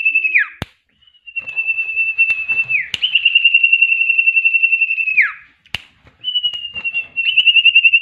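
A caged common iora (cipoh) sings rapid-fire trills, a fast stutter of one high whistled note repeated over and over, which Indonesian bird keepers call an "AK 47" burst. Each trill lasts one to two seconds and ends in a quick downward slide, with short gaps between them. There is a sharp click about half a second in and another near six seconds.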